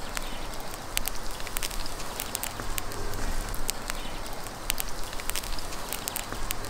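Minced-meat kebabs on skewers grilling over hot charcoal: irregular sharp crackles and a sizzling hiss, over a steady low rumble.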